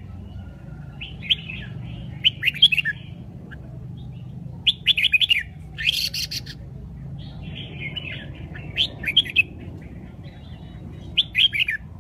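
Red-whiskered bulbul singing: several short, quick warbled phrases with pauses of a second or two between them, over a steady low background hum.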